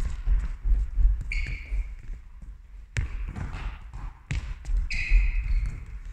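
Volleyballs smacking and bouncing on a sports hall floor, with two sharp hits about three and four seconds in. Sneakers squeak briefly on the floor twice.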